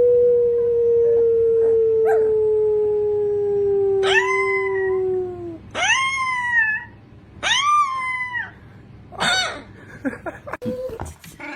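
Dogs howling: one long, low howl slowly falling in pitch. About four seconds in, a higher voice joins it with three shorter howls that rise and then fall, followed by a rougher cry.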